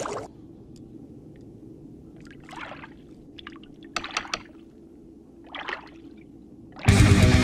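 Underwater ambience of an animated cartoon: a low steady rumble with a few short bubbling gurgles. Loud distorted electric guitar music cuts in near the end.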